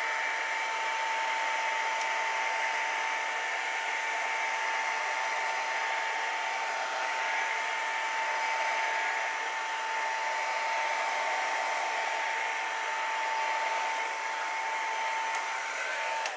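Electric heat gun blowing steadily over wet acrylic pour paint to pop cells and air bubbles, its airflow carrying a steady whine. It cuts off at the very end.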